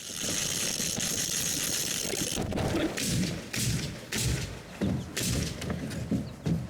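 Knocks and thuds from framing a house's walls, coming about one or two a second from about two and a half seconds in. Before that there is a steady hiss.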